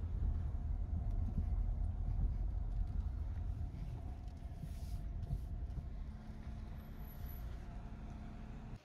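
Car driving, its low engine and road rumble heard from inside the car, gradually getting quieter.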